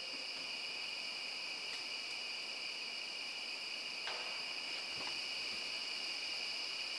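A steady, continuous high-pitched chorus of night insects, unbroken throughout, with a faint short sound about four seconds in and another about five seconds in.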